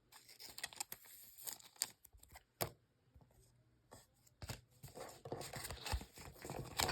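Pokémon trading cards and booster-pack wrappers being handled: scattered light clicks, rustles and crinkles, busier in the second half.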